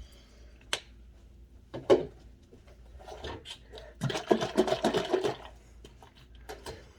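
Food-preparation handling sounds: a sharp click, a knock, then about a second of quick, rhythmic scraping and rattling as cheese is added to a salad.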